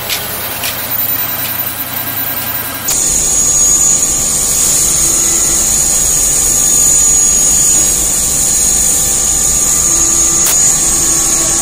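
CNC vertical machining centre's end mill cutting a metal tool-holder blank: the spindle and cut give a steady high-pitched whine over a low machine rumble. Before that, for about the first three seconds, quieter workshop machine noise with a couple of light clicks.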